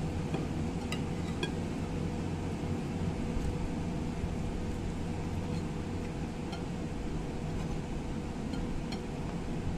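A steady low hum throughout, with a few faint clicks and clinks of fingers and food against a ceramic plate as rice is eaten by hand.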